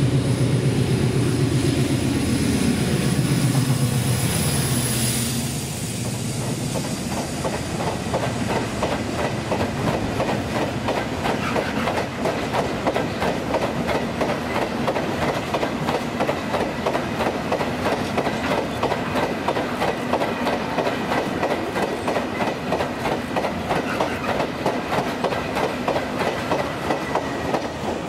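Colas Rail class 56 diesel locomotive, with its Ruston-Paxman V16 engine, hauling a freight train past; the engine note falls in pitch over the first five seconds or so. Then a long rake of freight wagons rolls by with a fast, even clickety-clack of wheels over the rail joints.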